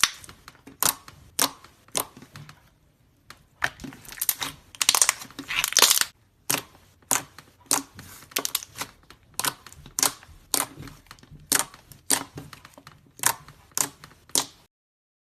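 Slime being pressed and stretched by hand, giving a run of sticky crackles and clicking pops, roughly one or two a second, with a denser stretch of crackling in the middle. It cuts off suddenly near the end.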